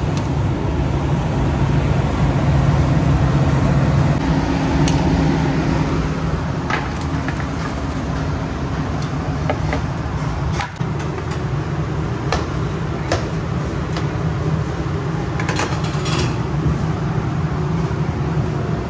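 Steady low hum of a commercial conveyor pizza oven's blowers and kitchen ventilation, with scattered clicks and knocks of metal pans and utensils from about five seconds in.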